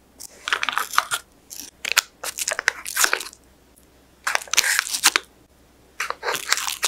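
Chopsticks laying thin raw apple slices, overlapping, onto batter against parchment paper in a metal cake tin: crisp rustling and light clicks in several short bursts.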